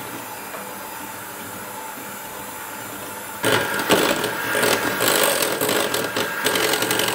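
Electric hand mixer whipping heavy cream with sugar and cocoa in a glass bowl: a steady whir that turns louder and rougher about three and a half seconds in, as the cream thickens toward stiff peaks.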